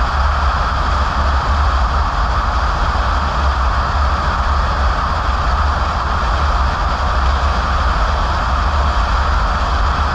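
Steady driving noise of a moving car heard from inside: a low rumble with an even tyre and road hiss over it.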